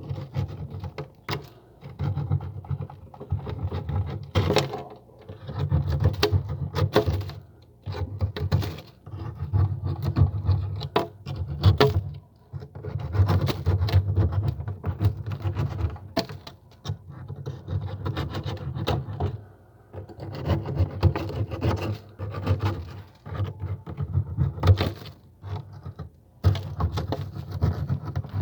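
Crunching of freezer frost, in repeated bursts of a second or two separated by short pauses, each burst a fast run of crackly strokes.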